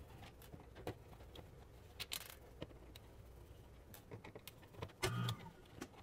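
Faint scattered clicks and scrapes of a screwdriver turning out the cover-plate screws on a wall outlet and the plate being handled.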